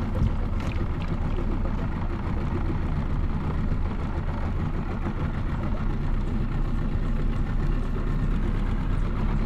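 Small fishing boat's outboard motor running steadily at low speed.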